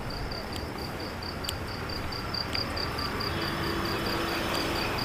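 Insect chirping in a rapid, even, high-pitched pulse over a steady background hiss.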